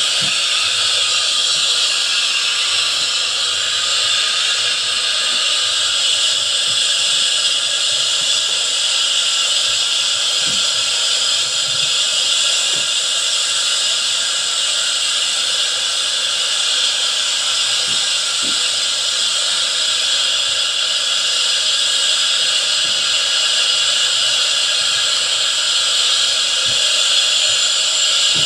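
Recorded DC-9 jet engine start-up played through small PC speakers set inside a model airliner fuselage: the first engine running as a steady, hissing jet whine.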